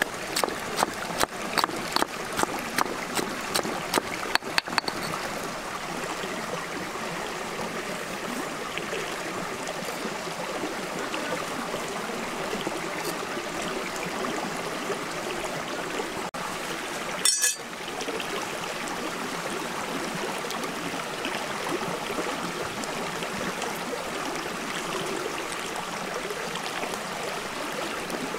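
Water running steadily in a stream. For the first few seconds a pestle pounds chillies in a stone mortar at about three strokes a second, and there is one brief knock about 17 seconds in.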